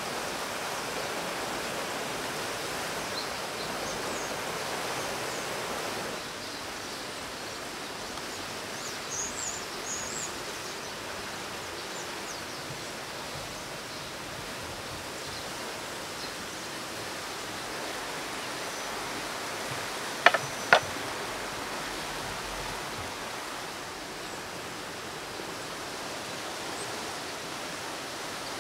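Steady outdoor rushing noise, with a few faint high chirps about nine seconds in and two sharp clicks half a second apart about twenty seconds in.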